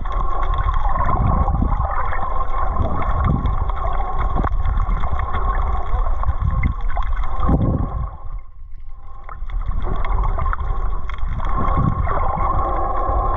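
Boat machinery heard through the water: a steady mechanical hum with two held tones over a low rumble, with water gurgling. The sound drops out briefly about eight seconds in, then returns.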